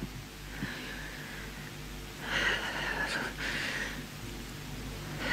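Quiet room tone with a steady low hum and two soft, breathy rushes of noise: one about half a second in, and a slightly louder one from about two to three and a half seconds.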